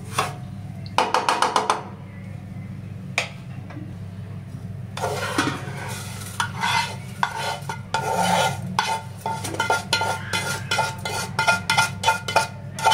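Wooden spatula scraping roasted semolina around a non-stick pan. From about five seconds in there are repeated scrapes and clinks as the semolina is tipped and scraped out onto a steel plate, with a faint metallic ringing. A steady low hum runs underneath.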